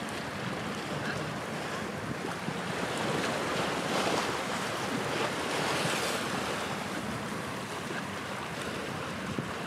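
Wind and waves on open water, with wind buffeting the microphone. It swells louder for a few seconds in the middle.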